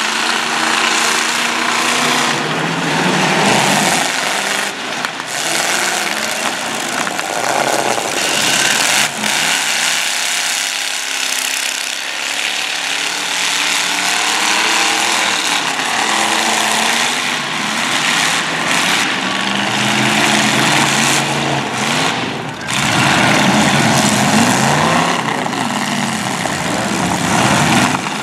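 Several demolition derby cars' engines running hard, revving up and down as the cars accelerate and ram each other, with a few sharp bangs of impacts.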